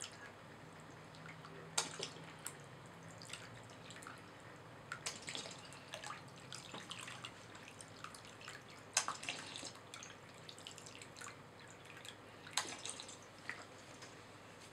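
Water squirted from a hand spray bottle onto a plaster fossil-dig block in a glass baking dish, with irregular dripping and small splashes. A few sharper squirts stand out, the loudest about 2, 9 and 12.5 seconds in.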